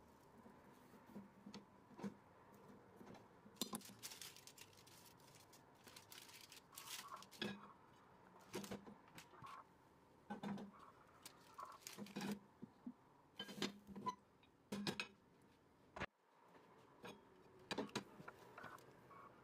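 Quiet scattered light knocks, clinks and soft scrapes of a silicone spatula working around a nonstick frying pan and of the pan and a plate being handled and set together to turn a cake out.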